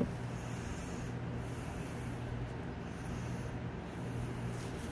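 Engine oil from a 6.2-liter diesel's oil pan pouring in a thin stream into a drain pan: a steady splashing hiss, with a low hum underneath and a single click right at the start.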